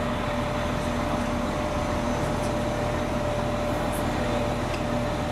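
Steady low drone of an idling engine, with a constant high whine over it.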